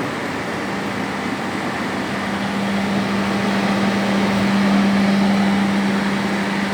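Hydraulic segment-type surface grinder running with its motors on: a steady mechanical din with a strong low hum that grows louder and then stops near the end.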